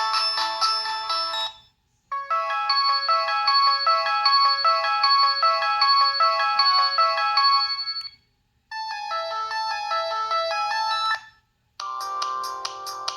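Samsung T249 mobile phone playing its preloaded ringtones, short electronic melodies of quick notes one after another with brief silences between. One ends about a second and a half in, a longer tune runs about six seconds, a shorter one follows, and another starts near the end.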